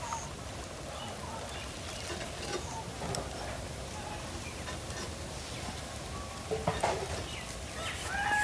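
Faint clicks and knocks of hands working at a small water pump and its hose fitting, which is not yet running, over a steady outdoor hiss. Near the end a hen begins clucking.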